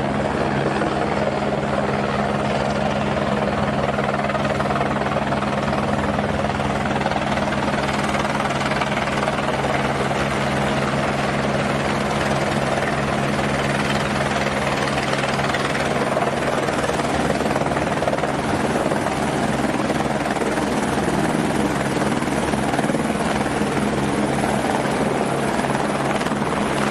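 Helicopter in flight, its rotor and engine sound holding steady and loud with a constant low hum, without rising or fading.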